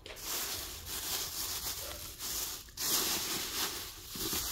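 Rustling and rubbing noise in several uneven swells.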